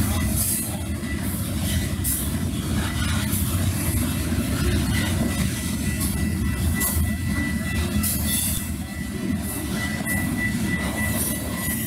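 Freight train of loaded covered hopper cars rolling past, a steady rumble of wheels on rail with a thin, steady wheel squeal that grows stronger near the end. The sound is dulled by the camera's wind-noise reduction turned all the way up.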